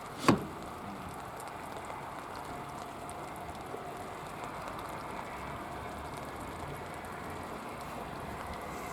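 Steady hiss of rain falling, with one sharp knock just after the start.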